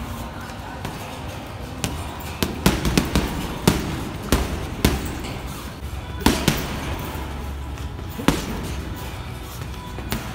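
Boxing gloves punching a heavy bag: sharp thuds, some in quick combinations and some single, with pauses between them, and a flurry of several punches about three seconds in.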